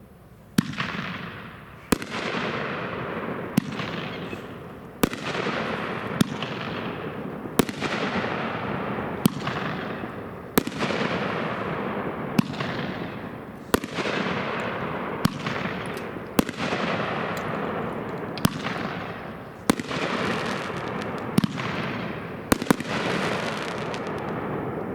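Black Beard's Bounty 9-shot firework cake by Sky Bacon firing. Sharp bangs come about every one and a half seconds, each followed by a noisy tail that fades.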